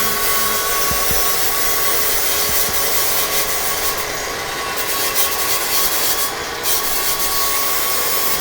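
Angle grinder running steadily against steel, a dense grinding hiss over the motor's steady whine.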